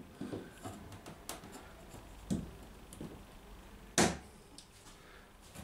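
Pliers working a copper boat nail: a few small clicks and a soft knock, then one sharp snap about four seconds in as the jaws cut through the nail.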